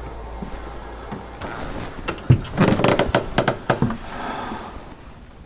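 Footsteps and knocks on narrow old wooden stairs: a quick run of sharp thumps and clunks a little over two seconds in, lasting about a second and a half.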